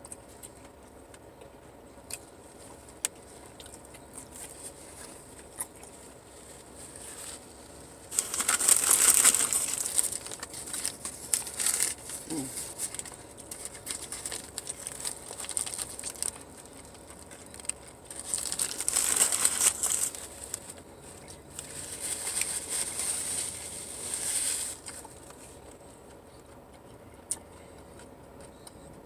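Paper food wrapper crinkling and rustling in several bursts, the first about eight seconds in and another two around twenty seconds, with a few small clicks between.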